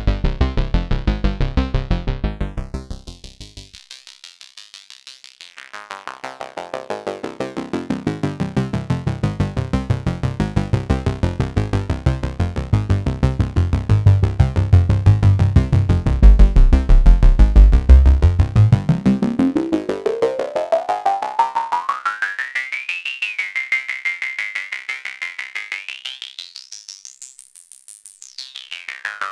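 Arturia MatrixBrute synthesizer playing a fast repeating note sequence through a Doepfer A-106-5 SEM filter, an Oberheim SEM-style filter, with its cutoff swept by hand. It closes to near silence about three seconds in, opens again into a bass-heavy sound, then in the last third the resonance rises into a high whistling peak that climbs, holds, peaks and falls back near the end.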